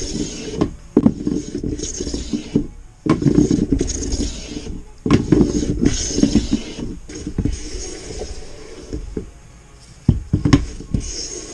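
Japanese chamfer plane (mentori kanna) shaving the edge of a board: about five rasping strokes, each about a second and a half long, with short gaps between. A couple of sharp knocks come near the end.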